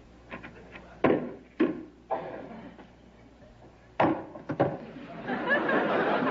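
Several sharp knocks and thumps of a hard hat and wooden chairs against a wooden table, in two groups of three. Near the end comes a steady crowd murmur like a studio audience.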